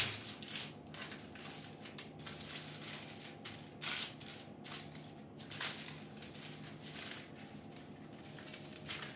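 Parchment baking paper rustling and crinkling on a metal baking tray as hands press and stretch pide dough flat on it, in a string of short irregular scrapes. A sharp knock opens it, and a louder crinkle comes about four seconds in.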